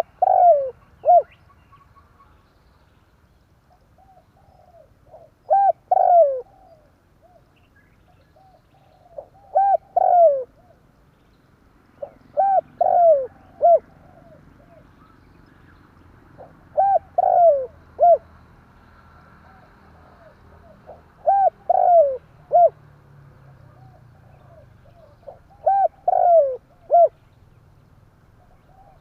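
Spotted dove (tekukur) cooing: a phrase of a few short coos with a longer falling note, repeated about every four seconds, seven times. It is the kind of call used as a lure to draw wild doves in.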